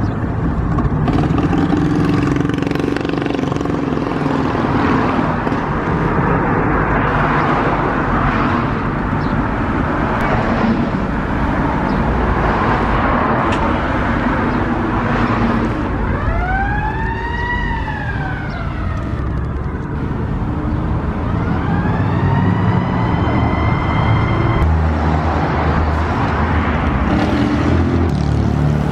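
Street traffic with car engines passing at cruising speed. About halfway through, a siren wails twice, first rising and falling, then rising and holding. Near the end a deeper engine rumble comes in close.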